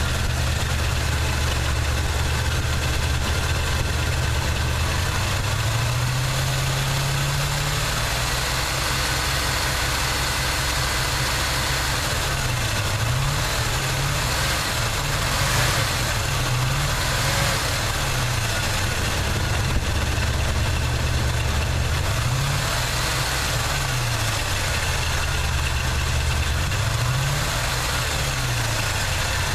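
Chevy 350 small-block V8 in a 1979 Chevy truck, running with a nagging misfire: steady at first, its speed climbs about six seconds in, then falls and picks up again several times.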